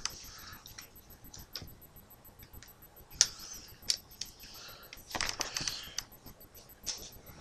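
Handling of an airsoft M203 grenade launcher: a few sharp plastic clicks with a rattling, shuffling stretch about five seconds in.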